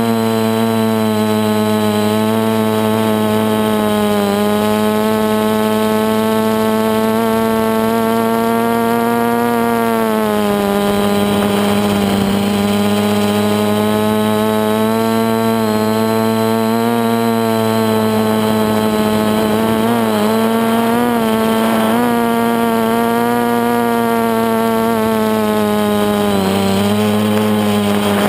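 Multirotor drone's electric motors and propellers buzzing steadily in flight, heard close up from the camera it carries. The pitch wavers as the throttle changes, dipping briefly twice.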